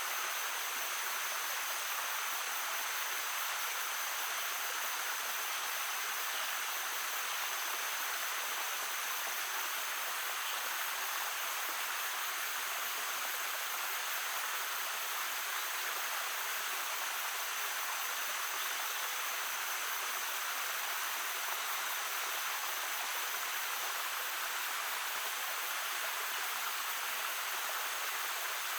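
A babbling stream: a steady, unbroken rush of flowing water.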